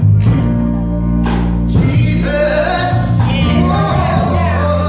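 Gospel song: a woman singing into a microphone over sustained keyboard chords and held bass notes.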